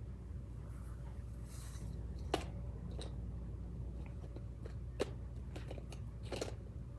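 Light scratching of colouring on paper, with two sharp taps about two and a half and five seconds in, over a steady low hum.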